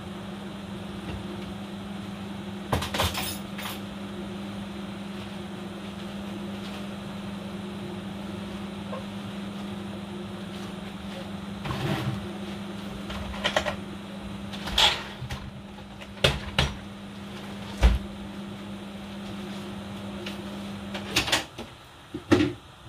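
Thick ogbono soup boiling in a pot, with large bubbles popping in short, irregular plops several times. A steady electrical hum runs underneath and cuts off near the end.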